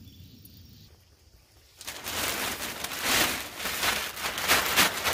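Black plastic trash bag being pulled and handled: loud, dense crinkling and rustling that starts suddenly about two seconds in, after a faint, quiet outdoor background.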